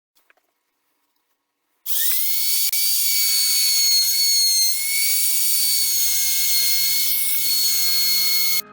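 Electric power tool motor spinning up about two seconds in and then running steadily with a high whine and hiss. It cuts off suddenly near the end.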